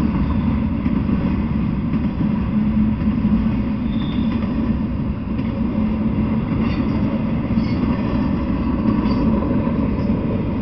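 Intermodal freight train of semi trailers on flatcars rolling past, a steady rumble of wheels on rail, with a few faint, brief high squeaks about four seconds in and again near eight seconds.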